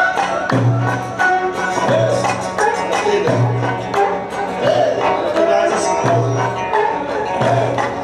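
Live Egyptian Sufi religious music: a hand frame drum and a darbuka beat a steady rhythm under a wavering melody line, with a deep bass note returning about every second and a bit.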